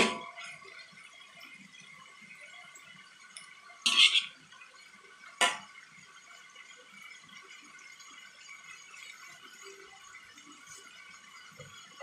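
Fried tofu and onions sizzling steadily in a wok, with a metal spatula clanking and scraping against the wok three times: at the start, about four seconds in, and about five and a half seconds in.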